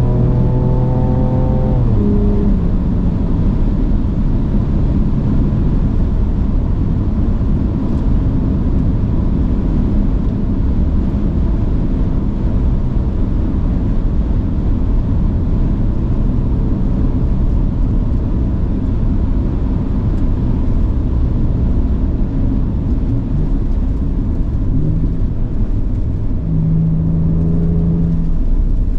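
Ford Ranger Raptor's twin-turbo V6 pulling, its note dropping away about two seconds in. After that a loud, dense rumble of the moving truck covers most of the stretch, with the engine faint beneath it and coming back up briefly near the end.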